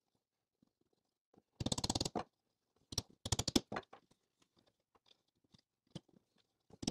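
Stainless-steel window channel clicking and creaking in three short bursts of rapid little clicks as it is bent by hand against a block to straighten a kink.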